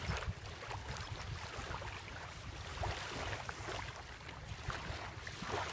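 Wind rumbling on the microphone over small waves lapping at the shoreline.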